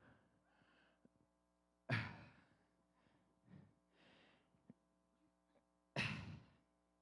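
A man's heavy exhalations close to a handheld microphone: two loud, sudden breath blasts about four seconds apart, with softer breaths between, as he strains under roughly 100 pounds of sandbags hung around his neck.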